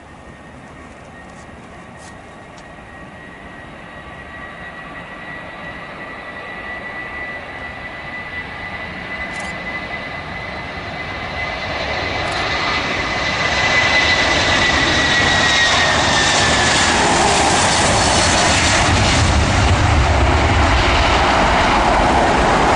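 Boeing 757-200's Rolls-Royce RB211 turbofans at takeoff thrust as the airliner rolls down the runway, passes by and climbs away. A steady high whine drops in pitch as the aircraft goes past, over a jet roar that grows louder for the first two-thirds and then stays loud.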